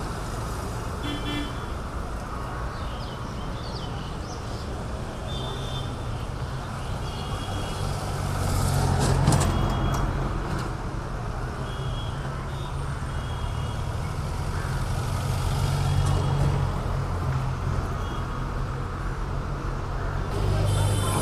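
Busy road traffic, engines running in a steady rumble, with short car-horn toots every few seconds; a vehicle passes louder about nine seconds in.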